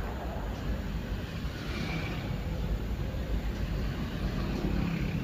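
Steady low background rumble and hiss with no distinct events.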